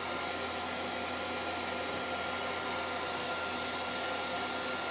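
Steady hiss with a low hum and a faint high whine, unchanging throughout, with no pops.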